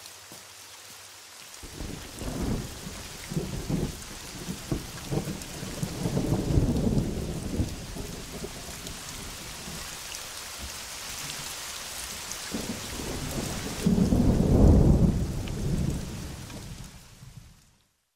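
Steady heavy rain with thunder rolling in several long rumbles from about two seconds in, the loudest roll near the end, then everything fades out.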